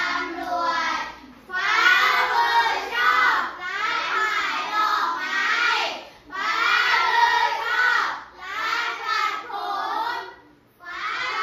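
A class of young children singing together in unison, in phrases of about two seconds with short breaks between them.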